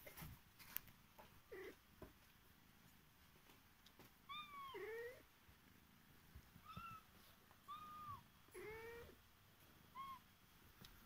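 Kitten mewing: about six short, high-pitched mews, each rising and falling, spaced a second or two apart.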